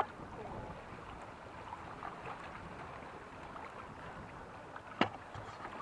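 Water washing along a sailing catamaran's hulls, with wind on the microphone: a steady rushing hiss. A single sharp knock about five seconds in.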